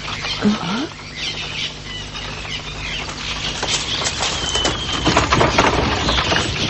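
Birds chirping in short whistles, and from about four seconds in the clatter of an approaching horse-drawn wagon, growing louder.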